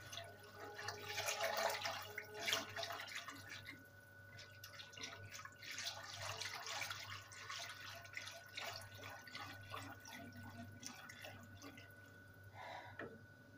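Wire whisk stirring a milk pudding mixture in a stone-coated pot: quick, irregular scraping and clinking against the pot with liquid sloshing, busiest in the first few seconds.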